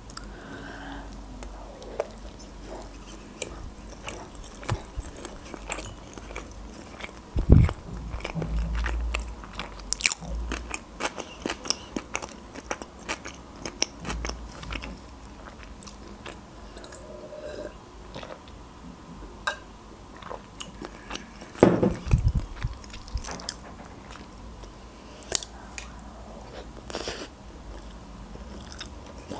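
A person chewing sushi rolls close to the microphone: many small wet clicks and soft crunches of mouth sounds, with two louder stretches of bites about a quarter of the way in and again about three quarters in.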